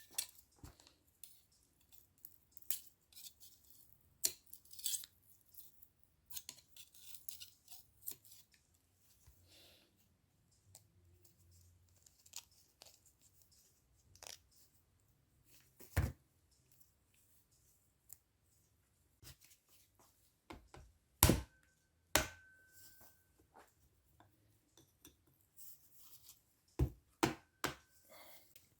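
Hand tools and small metal parts being worked on a workbench while bolts and covers come off an Alfa Romeo 33 cylinder head. Scattered faint clicks, taps and scrapes, with a few louder metal knocks about two-thirds of the way in and again near the end, some followed by a short metallic ring.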